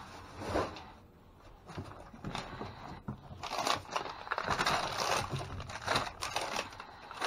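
Plastic bags and food packaging rustling and crinkling as they are rummaged through and moved about, in irregular bursts that grow busier about three seconds in.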